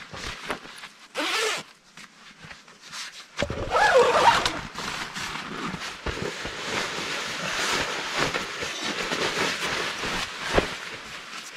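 A zipper being pulled in short runs, followed by a long stretch of rustling, scraping fabric.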